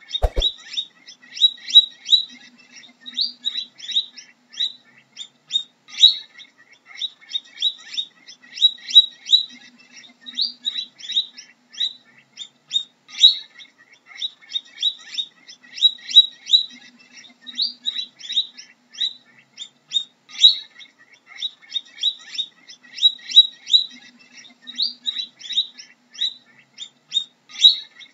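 Guinea pig squeaking in a continuous string of short, high-pitched chirps, several a second.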